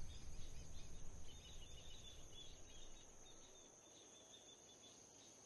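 Faint outdoor ambience with insects chirping, fading to near silence about three seconds in.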